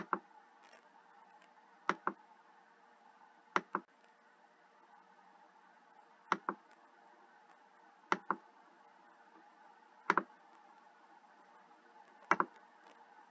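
Computer mouse button clicking seven times, roughly every two seconds, each click a quick double snap of press and release, over a faint steady hum.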